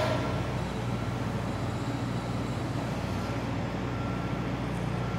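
Steady low hum and hiss of a large convention hall's background noise, with no distinct knocks or clanks.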